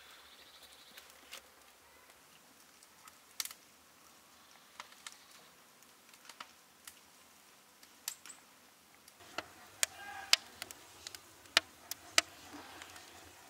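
Wood fire crackling in the pit of a tandoor: scattered sharp pops and cracks, sparse at first, then coming more often and louder in the last few seconds as the flames take hold of the logs.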